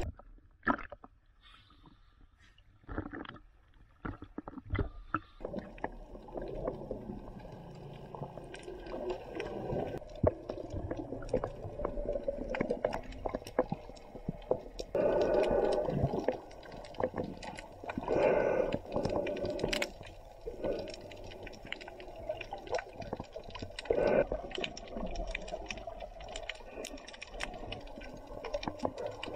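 Water sloshing and gurgling around a camera dipping at and under the surface, heard as underwater sound with many small crackling clicks and a few louder splashy surges in the second half.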